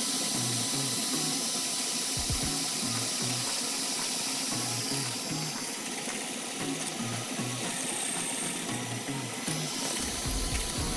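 Tool n Tool 21V cordless drill running steadily, its spade bit boring a wide hole through a wooden board. Background music with a steady beat plays underneath.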